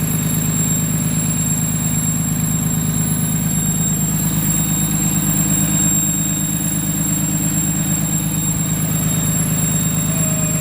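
Cummins ISB 6.7-litre inline-six turbo-diesel idling steadily, with a thin, steady high-pitched whistle over the engine note. The owner suspects a turbo fault or an air leak.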